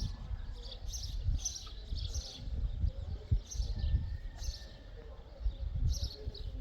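Small birds chirping in quick repeated calls, over an uneven low rumble.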